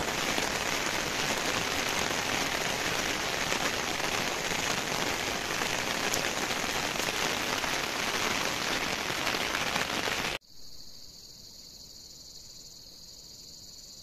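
Steady rain falling. It cuts off suddenly about ten seconds in, leaving only a faint, steady high-pitched sound.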